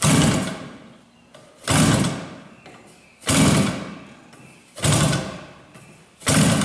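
TBM-RCS SV 100cc twin-cylinder gas engine being hand-flipped by its propeller, five flips about a second and a half apart. Each is a sudden burst that dies away within a second as the engine turns over without catching.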